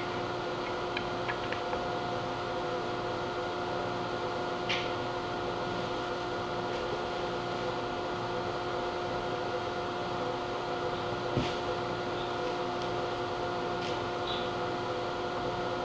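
Steady mechanical hum with a fixed tone, carrying on unchanged. A few light taps and clicks sound over it, about five and eleven seconds in, as the spray can and pencil are handled on the wooden board.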